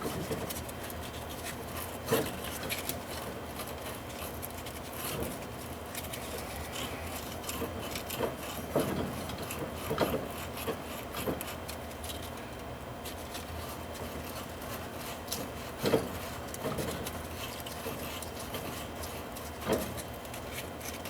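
Sandpaper rubbed back and forth by hand on a pipe and its fitting, cleaning the metal before flux and solder, with a few light knocks of the work being handled.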